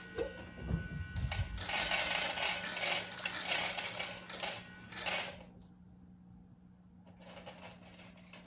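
Automatic pet feeder dispensing dry cat food: a rattling clatter of kibble tumbling into the bowl for about five seconds, with a fainter rattle near the end.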